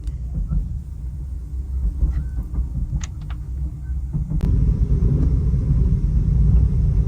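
Low steady rumble of a moving train heard from inside a sleeper carriage, growing louder about four seconds in, with a few light clicks along the way.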